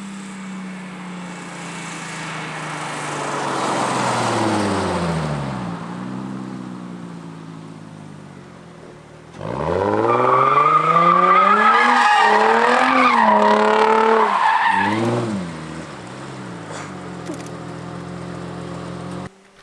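Nissan 350Z's 3.5-litre V6 through a dual Tomei exhaust: the engine note falls in pitch and fades over the first few seconds, then about nine seconds in it comes in loud with the revs climbing and swinging up and down several times in quick blips before settling to a steady lower note. It cuts off suddenly near the end.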